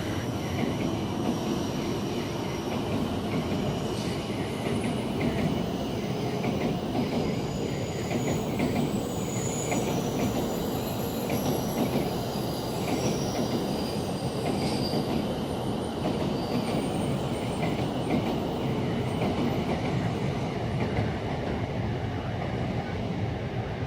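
Tokaido Shinkansen train running past over rail joints: a continuous steady rumble of wheels on rail, with the clatter of the joints and brief high-pitched wheel squeals.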